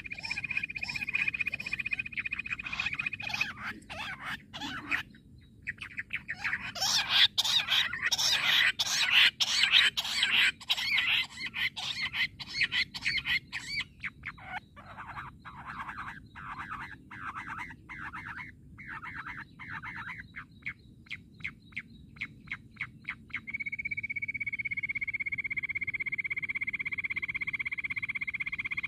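Jungle bush quail calling: rapid runs of short, sharp repeated notes, loudest in the middle and speeding up before they stop about two-thirds through. A steady high-pitched buzz sounds at the start and again through the last few seconds.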